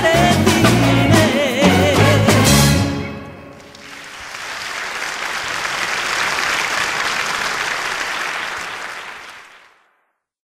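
Closing bars of a song: a wavering lead melody over bass and a steady beat, ending about three seconds in. Applause then rises and runs for about six seconds before fading out.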